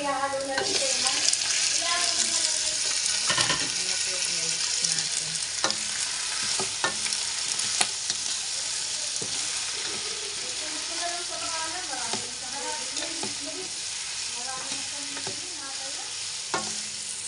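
Raw chicken pieces sizzling in hot oil with sautéed garlic and onion in a frying pan, stirred with a ladle that knocks and scrapes against the pan now and then. The sizzle swells as the chicken goes in, about half a second in, and eases over the following seconds.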